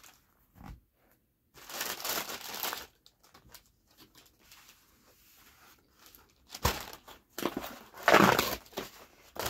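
Cardboard pizza boxes and paper wrapping being handled and moved: bursts of rustling and crinkling, with a sharp knock about two-thirds of the way in and the loudest rustle near the end.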